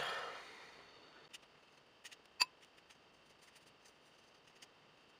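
Quiet room with a few faint, short clicks and taps, the sharpest about two and a half seconds in, from painting materials and equipment being handled. A sniff fades out at the very start.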